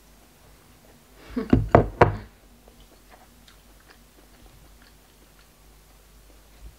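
A glass sauce bowl set down on a table, giving a quick cluster of four or five knocks about a second and a half in. Faint small clicks follow.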